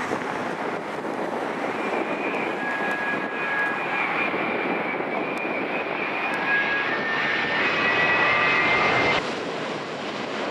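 Jet airliner engines on landing approach, a loud roar with a high whine over it that grows louder as the plane comes closer, then cuts off abruptly near the end.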